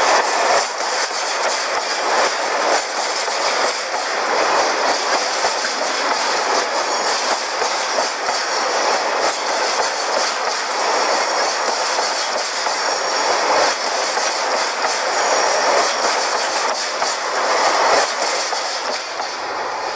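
Dubbed-in sound effect of a full-size freight train running: a steady rush with wheels clacking over rail joints.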